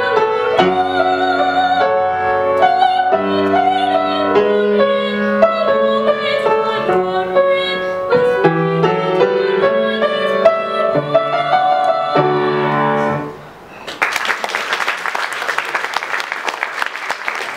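A young girl's classical-style singing voice with grand piano accompaniment, closing a song. The music stops about 13 seconds in, and applause starts a moment later.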